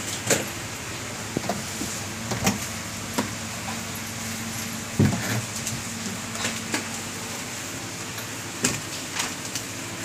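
Scattered knocks and clicks of hands handling a semi-automatic top-loading washing machine's plastic parts and hose, the loudest about five seconds in, over a steady low hum.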